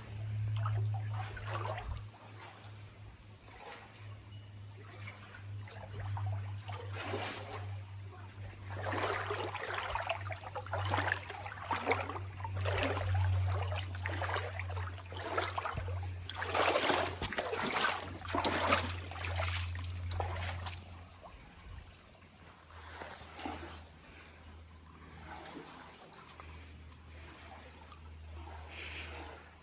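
Water trickling and splashing in a rocky creek, swelling and fading, with a steady low rumble underneath.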